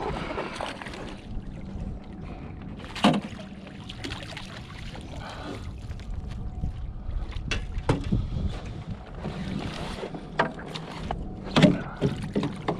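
A trout splashing as it is scooped out of the water in a landing net beside a small aluminium jon boat, with sharp knocks and clatter of the net and gear against the metal hull, the loudest a few seconds in and near the end.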